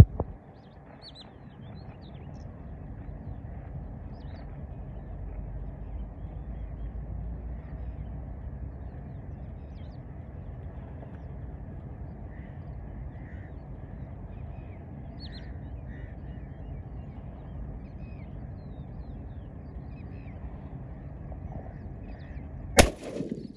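Single 12-gauge shotgun shot near the end, sharp and loud with a short echo. Before it there is a low steady rumble and faint bird calls.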